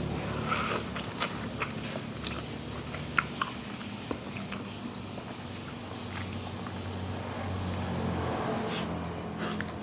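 Person chewing and eating close to the microphone, with a scatter of sharp mouth clicks and smacks, densest in the first few seconds. A low steady hum runs underneath.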